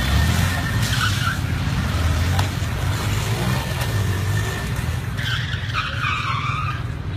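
Small motorbike engines running during stunt riding, with tyres screeching in a skid about five seconds in.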